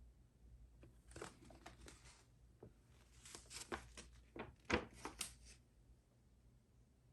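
Cardboard jigsaw puzzle pieces being handled: a scatter of light clicks and rustles from about a second in, with the loudest tap about two-thirds of the way through, then stopping.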